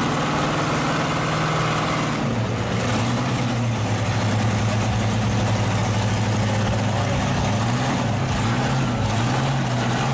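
Lifted pickup truck's engine running hard under heavy pulling load. Its pitch drops about two seconds in, then holds steady.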